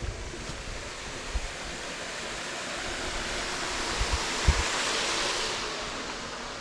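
Steady rush of water falling over a small waterfall, swelling louder midway and easing off again, with a few soft low bumps on the microphone.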